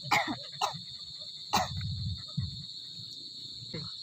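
Insects chirring steadily at one high pitch, broken by three short, sharp sounds in the first two seconds and a brief low murmur about two seconds in.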